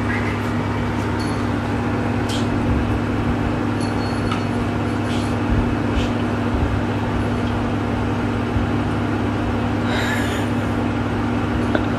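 Steady whirring of an electric motor with rushing air and a constant low hum, unchanging throughout, with a few faint ticks.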